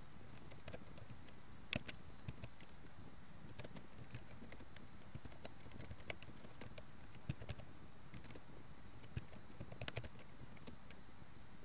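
Typing on a computer keyboard: irregular, faint key clicks over a steady low hiss, with a louder run of keystrokes near the end.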